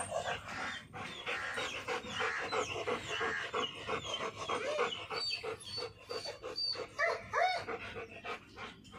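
German shepherd dog panting, with many short rising and falling whines.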